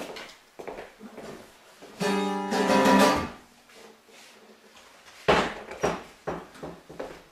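Acoustic guitar strings ringing out in a chord for about a second, then a sharp knock and a few smaller knocks and bumps of the guitar being handled.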